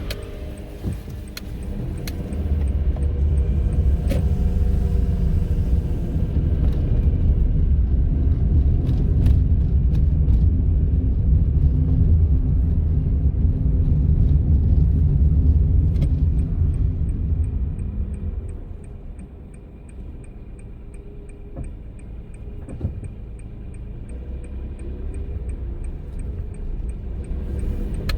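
A Honda N-ONE kei car driving: steady low engine and road rumble that eases about two-thirds of the way through as the car slows, then builds again. A regular light ticking, a little under two a second, runs through the last third.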